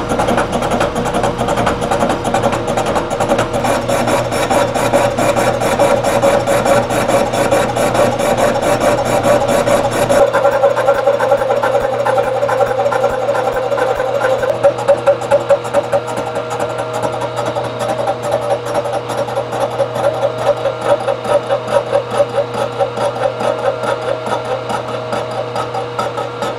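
Milling machine taking a face-mill cut across a cast-iron Ford V10 exhaust manifold flange with a 3-inch face mill: a steady pitched machining whine, with a low hum dropping away about ten seconds in and a pulsing beat in the second half. The flange overhangs its support, and the machinist isn't happy with the surface finish it leaves.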